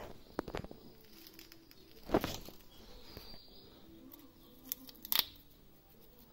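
Crumpled masking covering around a freshly spray-painted brake caliper rustling and crinkling under a hand, with scattered clicks. The loudest rustle comes about two seconds in, and a pair of sharp clicks comes about five seconds in.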